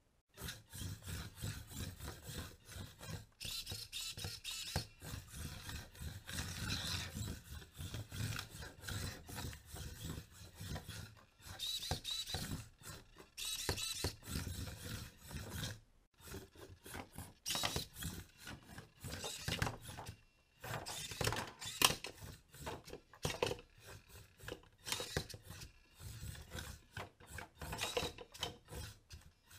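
Antweight combat robot driving in stop-start spurts on a wooden board: its small drive motors whir while its plastic body scrapes and rasps on the wood. Its flipper snaps up partway through, and there are occasional sharp knocks, the loudest about two-thirds of the way in.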